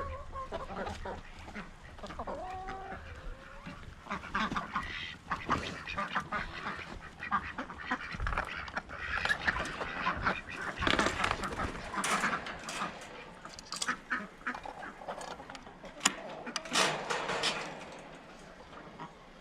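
A flock of ducks quacking and calling over one another, with the loudest stretch in the second half.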